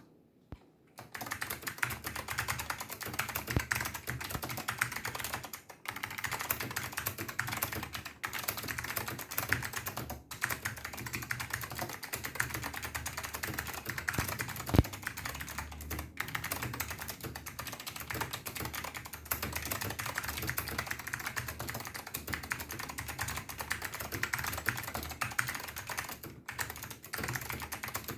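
Continuous fast typing on an NTC KB-6251EA keyboard with wax-lubricated Alps SKCM White switches: a dense run of key clacks that starts about a second in, with a few short pauses and one louder keystroke near the middle. The sound is picked up through a phone microphone.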